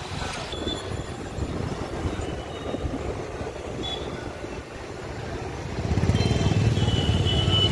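Riding a motorbike through city traffic: steady engine and road noise with wind on the microphone, growing louder about six seconds in.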